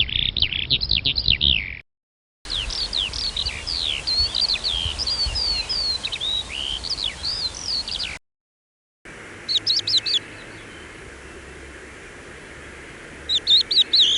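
Songbirds chirping and singing, in separate recordings spliced together. Dense chirping is followed by a brief silence, then a longer stretch of varied whistled slurs, then another silence, then two short bursts of rapid chirps about three and a half seconds apart over a steady background hiss.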